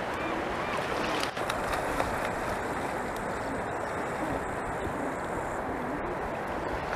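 Steady wind noise on the microphone with lapping sea water.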